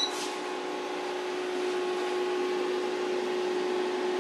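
Transformer-based pure sine wave inverter/charger running with a steady hum and the rush of its cooling fan, one steady tone standing out. Its charger has just been switched off and it is back in inverter mode.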